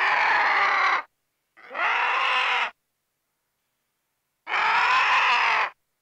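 Vulture calling: three harsh, screeching calls, each about a second long, with dead silence between them.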